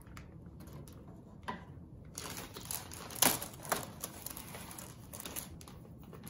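Light tapping and paper-and-cardboard rustling as a stack of crisp pizzelles is set into a paper cookie box and powdered sugar is tapped through a mesh sieve. A couple of sharper clicks come about three seconds in.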